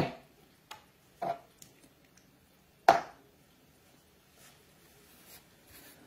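Paint bottle set down on a cutting mat with a sharp knock, followed by a few more knocks and light taps as small items are handled on the bench; the loudest knocks come at the start and about three seconds in.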